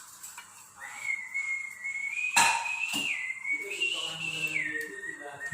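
A high whistle that starts just under a second in and holds steady pitches, stepping up and down a few times, with one sharp knock a little before the halfway point.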